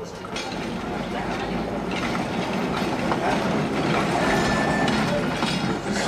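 Electric trolley car rolling along the rails toward the listener, its wheels and running gear growing steadily louder as it approaches.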